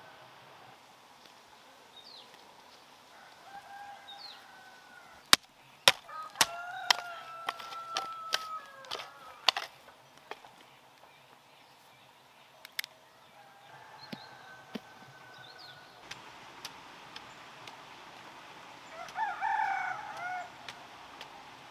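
Roosters crowing repeatedly, one long crow held through the middle and a louder, bending crow near the end. A quick series of sharp knocks, the loudest sounds here, comes in the middle.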